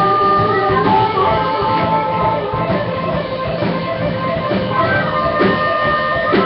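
Live rock band playing: electric guitar, bass and drum kit, with long held notes over the beat.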